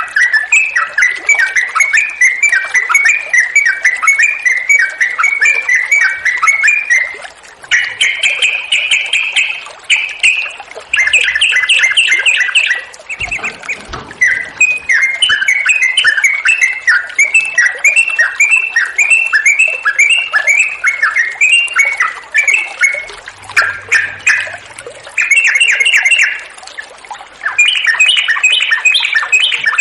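Yellow-vented bulbul singing continuously in long runs of quick, bubbly, chattering notes. Phrase follows phrase with only brief pauses, the full, sustained song used as a lure to set other bulbuls singing.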